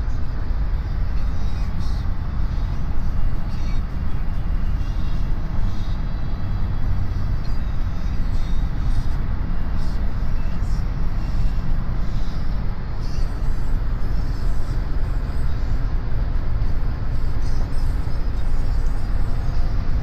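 Steady road and engine rumble inside the cabin of a car at motorway speed.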